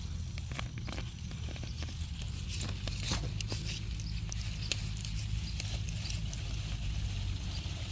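Scratchy rustling and crackling of soil and leafy potato plants handled while the plants are pulled and dug by hand, with many small irregular clicks and one sharper click around the middle, over a low steady rumble.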